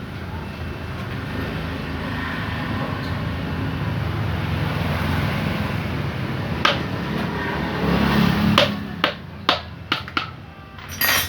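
A steady low rumble of vehicle noise, then a run of short, sharp metallic knocks and clinks near the end as motorcycle engine parts are handled and set down during disassembly.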